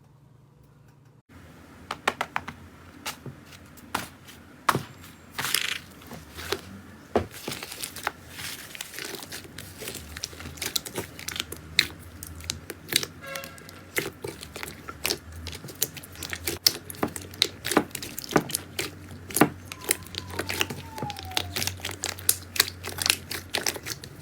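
Slime being worked by hand: a dense run of sticky crackling clicks and pops, starting about a second in.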